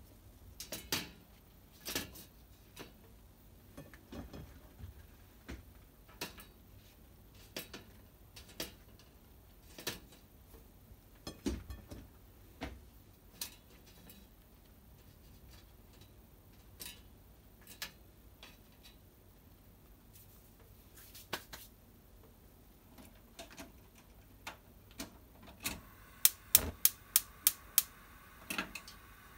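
Scattered light taps and clicks as shiitake caps are set down on a metal wire-mesh grill tray. Near the end a quick run of about six sharp, loud clicks, the gas burner's igniter, followed by a steady faint hiss as the burner lights under the tray.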